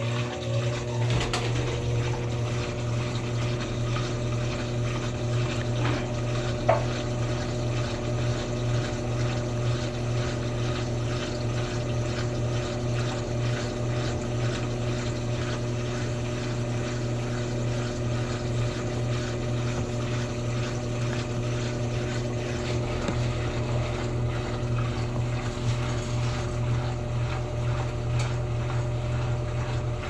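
Electrolux Essential Care LES11 11 kg top-loading washing machine running with its tub turning: a steady low motor hum with a few steady higher tones over a faint sound of water, and a single brief tap about seven seconds in.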